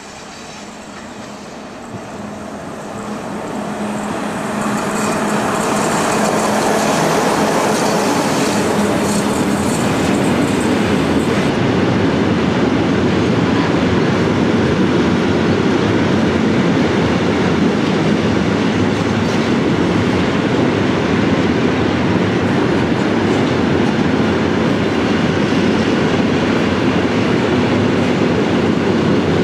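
Electric locomotive hauling a long freight train of silo hopper wagons passes close by. A steady hum rises in loudness over the first few seconds as the locomotive approaches and passes. It gives way to the even rolling rumble and clatter of the wagons' wheels over the rails.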